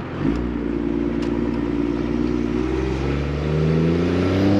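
1997 Dodge Ram 2500's 12-valve 5.9 L Cummins turbo-diesel straight-six pulling hard under full acceleration, its note jumping up about a quarter second in and then climbing steadily in pitch through the gear.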